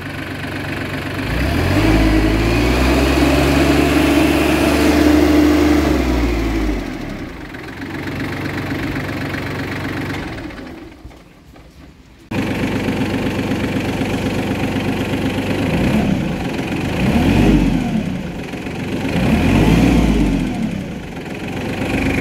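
New Holland Simba 30 mini tractor's three-cylinder 1318 cc diesel engine running. It is revved up about two seconds in and held for some five seconds, then drops back. After a brief lull just before the middle, it idles steadily with two short revs late on.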